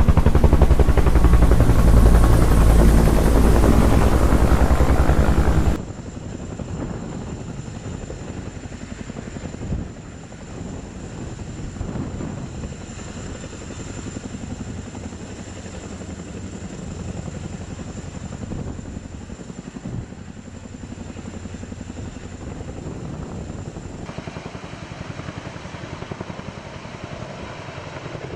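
Rotors of a CH-47 Chinook tandem-rotor helicopter chopping very loudly in rapid beats. About six seconds in, the sound cuts abruptly to a much quieter rotor beat that runs on.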